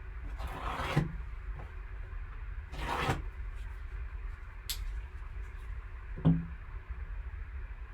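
Handling of a sealed trading-card box: two short rustles of packaging, a sharp click, then a soft thump as it is set down or shifted, over a low steady hum.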